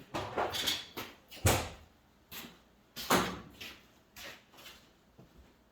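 Tools and metal parts knocking and clanking in a string of separate sharp knocks, the loudest about one and a half and three seconds in.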